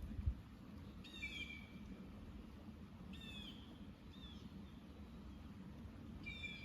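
A bird calling over and over, about every one to two seconds, each call a short downward-sweeping note. A brief low thump comes about a quarter-second in.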